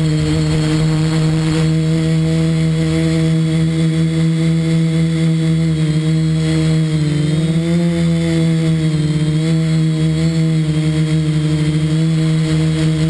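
A quadcopter's electric motors and propellers humming steadily, heard close up from a camera mounted on the craft. The pitch lifts briefly about halfway through, then settles.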